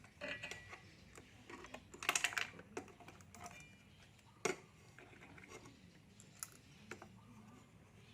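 Irregular light clicks and rattles of small metal and plastic parts being handled as an amplifier's front panel is fitted back in. There is a quick cluster of them about two seconds in and a single sharp click about four and a half seconds in.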